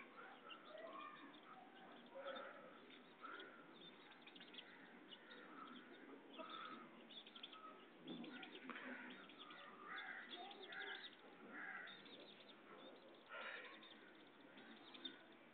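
Faint background with scattered short animal calls, several a second in places.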